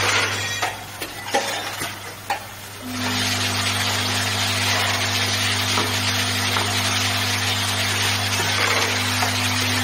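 Vibratory bowl feeders of a fastener counting machine running: a steady low hum with an even hissing rattle of parts moving round the bowls. The rattle drops away about a second in, with a couple of knocks, and comes back about three seconds in with a second, higher hum added.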